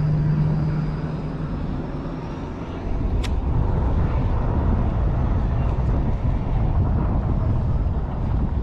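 A steady low rumble of wind on the microphone mixed with road traffic, growing louder about three seconds in. A single sharp click sounds about three seconds in.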